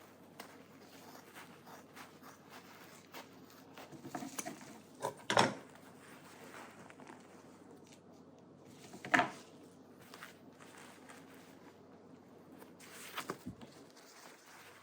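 Quiet room tone with faint rustling and handling noises, broken by a few short knocks: two sharp ones about five and nine seconds in, and a softer cluster near the end.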